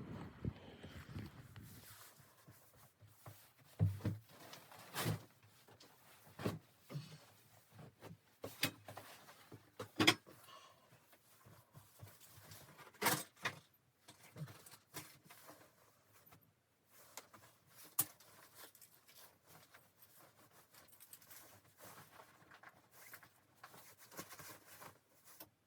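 Sporadic knocks and clicks with light rustling, from objects being handled at close range. The louder knocks come about 4, 5, 10 and 13 seconds in.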